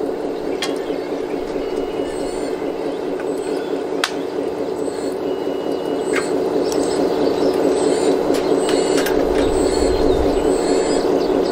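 Radio-controlled hydraulic excavator's pump motor whirring steadily, with a few sharp clicks. The whir grows a little louder about six seconds in.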